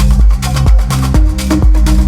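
Electronic dance music with a steady beat of about two kicks a second over a deep bass line. A held synth note joins about a second in.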